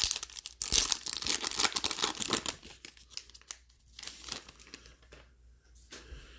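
A 2020 Topps Holiday baseball card pack's wrapper being torn open and crinkled: dense crackling for the first three and a half seconds, then a few fainter rustles.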